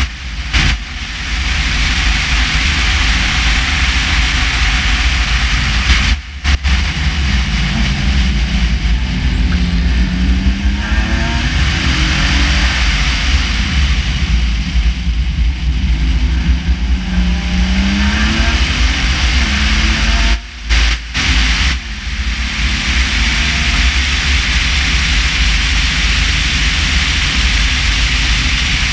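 Race car engine running hard at racing speed, heard on board through heavy wind and road rumble; the engine note rises and falls with throttle and gear changes, with a couple of brief sudden dips in level.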